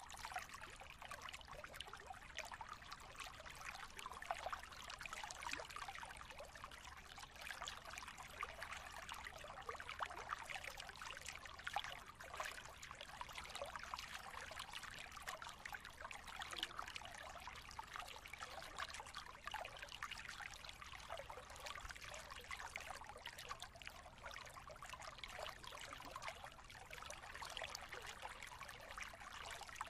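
Steady sound of running, trickling water, like a small stream.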